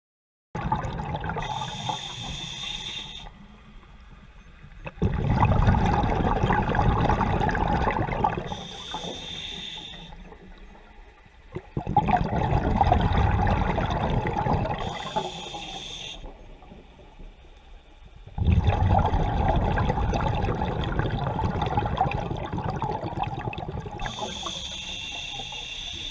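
Scuba diver breathing through a regulator: a short hissing inhale, then a loud rush of exhaled bubbles, repeating about every six to seven seconds. There are four inhales and three long bubble bursts, the bubbles being the loudest part.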